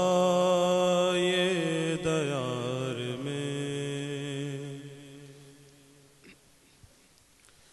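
A solo male voice sings a devotional tarana, drawing out long, wavering held notes. The voice fades away after about four to five seconds, leaving a near-silent pause before the next line.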